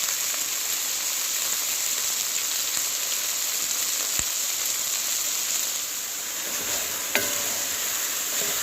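Beef pieces frying in oil in a crowded pot as they brown: a steady high sizzle, with a faint click about four seconds in and a sharper click about seven seconds in.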